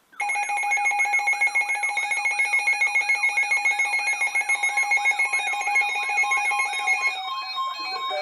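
Electronic emergency alert tone from a broadcast flood warning. It starts abruptly as steady tones with a warble repeating about four times a second, and about seven seconds in it changes to a stepped run of beeps.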